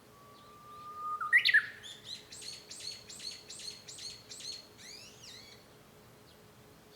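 Japanese bush warbler (uguisu) singing: a long, level low whistle that sweeps sharply up into a loud flourish, followed by a quick run of about ten repeated notes that fades out before the end.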